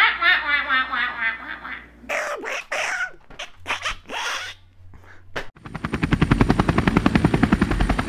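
Sound effects made with the mouth, by several people in turn. First comes a warbling trill for about two seconds, then a few short vocal noises, then a fast rattle of about ten pulses a second for the last two seconds.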